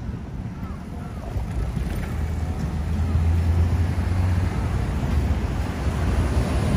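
City street traffic with wind rumbling on the microphone; a heavy vehicle's low engine drone comes up about a second and a half in, and the noise grows louder overall.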